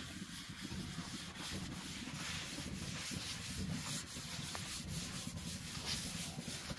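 Paper towel rubbing oil across a steel griddle top, a steady wiping swish. The oil is being wiped on in a thin coat, as in seasoning.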